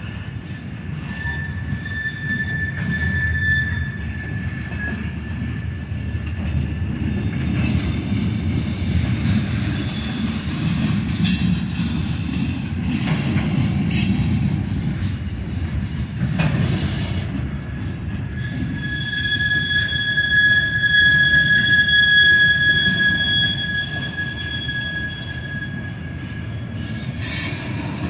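Freight cars of a mixed manifest train rolling past, a steady low rumble of steel wheels on rail. A high, steady wheel squeal rises over it at the start and again for about eight seconds in the second half.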